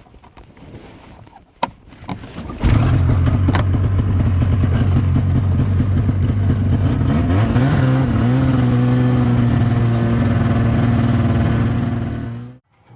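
A vehicle engine starts running loudly about three seconds in, after a single click. It holds a steady speed, wavers briefly in the middle, and cuts off suddenly just before the end.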